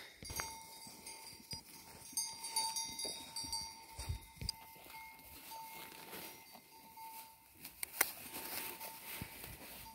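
A flock of sheep bleating on pasture, with a bell ringing steadily under it and one sharp knock about eight seconds in.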